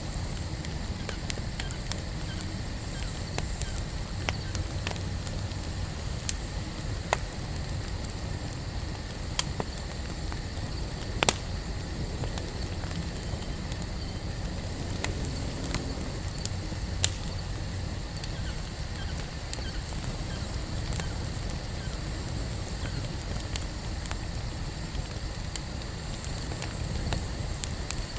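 Wood campfire burning: a steady low rumble of flames with light crackling and a handful of sharp pops from the burning wood, the loudest about eleven seconds in.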